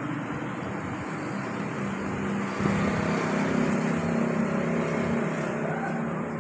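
Steady hum of a motor-vehicle engine and road traffic, growing a little louder about two and a half seconds in.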